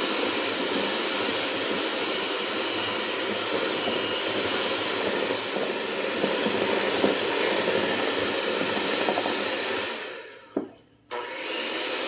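Electric hand mixer running at high speed, its beaters whipping cream cheese, butter and powdered sugar in a glass bowl, a steady motor noise with a thin whine. About ten seconds in it cuts out for about a second, then runs again.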